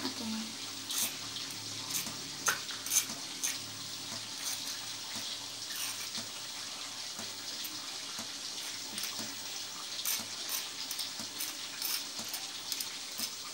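A metal spoon scraping and clicking against a stone mortar and pestle as ground spice paste is scraped off, over a steady hiss.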